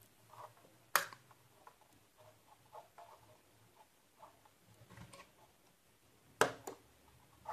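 Small handling noises on a wooden workbench as a mains plug is pulled from a switchboard socket and put down. There is a sharp click about a second in, faint scattered ticks, and a louder double click near the end.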